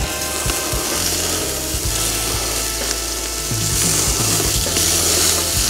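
Marinated meat sizzling on the hot grate of a small ceramic kamado charcoal grill as it is flipped, with scattered clicks and scrapes of metal tongs against the grate.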